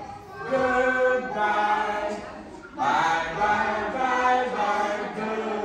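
A group of young children singing together in unison, in phrases of held notes, with a short break about two and a half seconds in.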